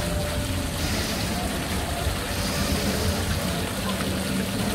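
Technical Park Mini Apollo ride running: a steady low drone and rushing noise as the gondolas swing round, with faint voices mixed in.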